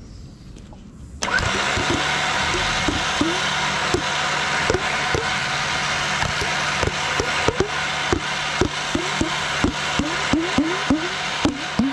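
Badland 9000 electric winch motor switches on about a second in and runs steadily with a constant hum, spooling synthetic rope onto its drum. Irregular knocks sound throughout and come more often toward the end.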